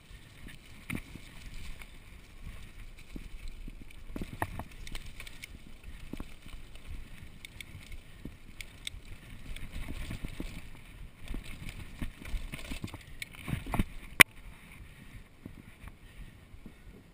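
Mountain bike riding over a dirt and leaf-strewn trail: a steady rumble from the tyres with frequent rattles and clicks from the bike. A single sharp knock about three-quarters of the way through is the loudest sound.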